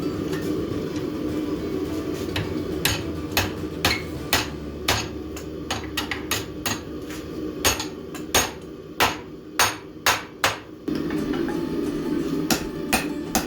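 Hand hammer striking a steel bar held in a vise to bend it, a series of sharp ringing blows about one or two a second with short pauses, over a steady low rumble.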